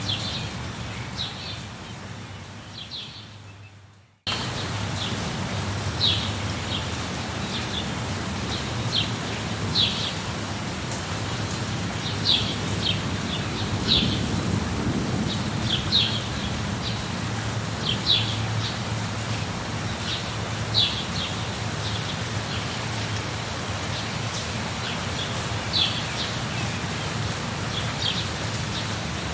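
Steady rain with birds chirping in short, high calls every second or two, and a low thunder rumble swelling around the middle. About four seconds in the sound fades almost to silence and then cuts straight back in, a joint in the looped recording.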